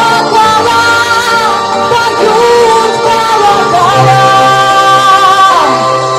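A song playing: a female voice singing over an instrumental backing track, with long held and gliding notes.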